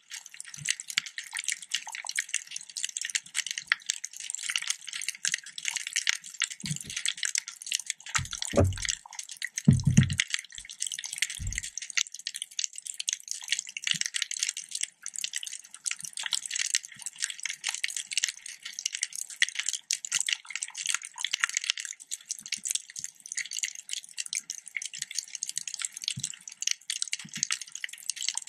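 Underwater reef sound: a dense, continuous crackling of countless tiny clicks from snapping shrimp, with a few short low thumps about eight to twelve seconds in.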